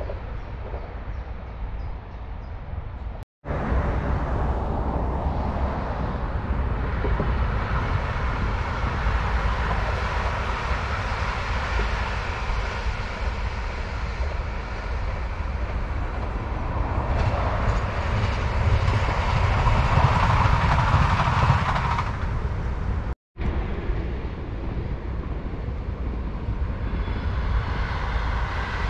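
Dutch NS electric passenger trains running by on the line. A Sprinter multiple unit approaches and passes with a swelling rush of wheel and motor noise, loudest about twenty seconds in. The sound drops out briefly twice where the recording is cut, and after the second cut another train is heard approaching.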